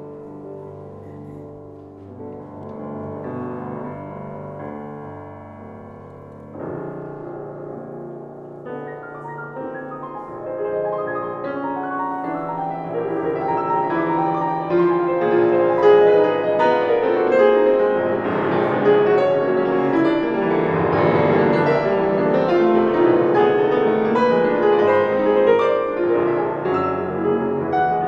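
Grand piano played solo, a classical piece. It starts soft and grows steadily louder and fuller from about ten seconds in, with dense chords through the second half.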